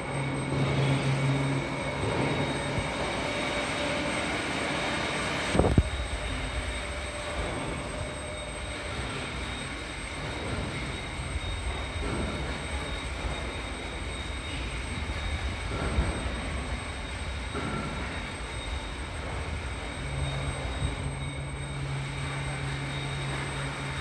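Electric motor and gearbox of a reactor's agitator drive running steadily on a water trial, a continuous mechanical hum. A single sharp knock comes just under six seconds in.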